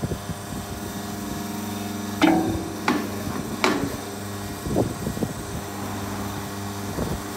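Hydraulic oil filter crusher running with a steady hum. About two seconds in the hum changes and three sharp metallic knocks follow, with lighter knocks later as the crushed oil filter is pulled out and handled on the steel tray.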